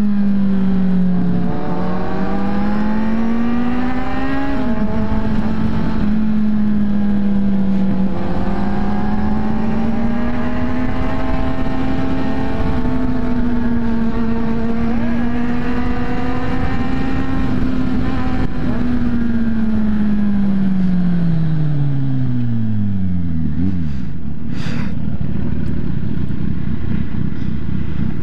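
Motorcycle engine while riding, with wind rumble on the microphone. The engine note climbs and drops sharply with an upshift about four seconds in, holds at a steady cruise, then falls away as the bike slows to a stop. Near the end only a low steady rumble and a single click remain.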